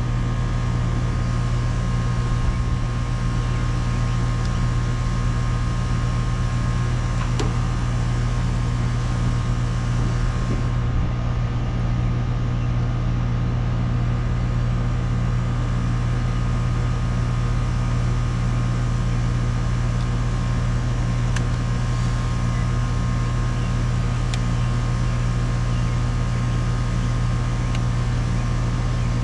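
Central air conditioner's outdoor condensing unit running steadily, its compressor and fan making an even hum; the system is working normally, with good refrigerant pressures.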